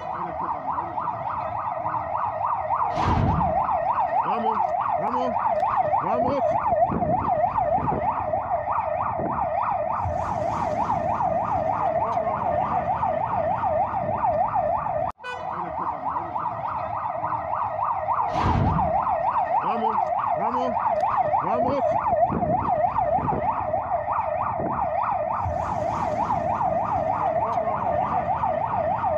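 Emergency vehicle siren yelping, its pitch sweeping rapidly up and down. A heavy thump sounds about three seconds in and again about eighteen seconds in, and the sound breaks off for a moment about fifteen seconds in.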